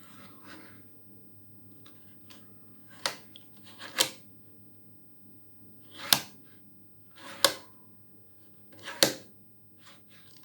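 Plastic clacks from a 7x7 Rubik's cube being handled: five sharp clicks one to two seconds apart, most with a brief rising rustle just before the click.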